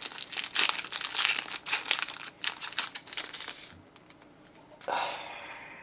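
Foil wrapper of a Yu-Gi-Oh booster pack crinkling in rapid crackles as the pack is opened and handled, stopping after about three and a half seconds; a softer brief rustle follows about five seconds in.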